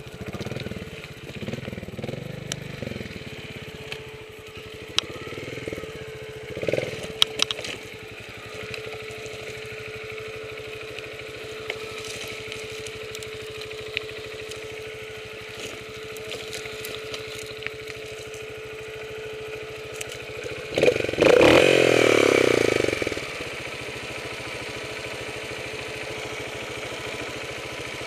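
Trials motorcycle engine running at low revs, with a few sharp knocks and rattles in the first seven seconds. About 21 seconds in it is revved loudly for about two seconds, then drops back to a steady idle.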